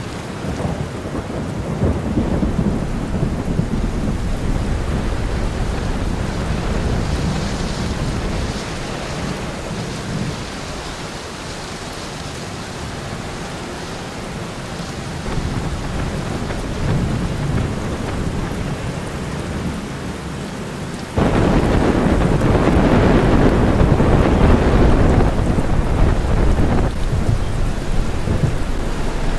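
Thunderstorm: steady rain with low rolls of thunder, getting suddenly louder about two-thirds of the way through.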